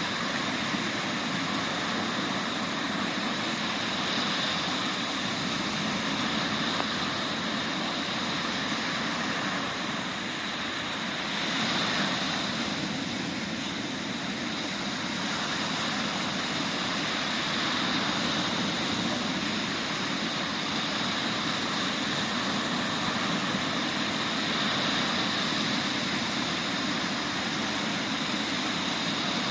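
Sea waves breaking and washing on the shore in a continuous surf, the sea still stirred up after a summer storm; one wave swells a little louder about twelve seconds in.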